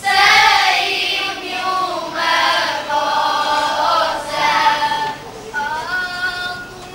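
Children's choir singing a cante alentejano moda together, with long held notes gliding between pitches; a new phrase begins about five and a half seconds in.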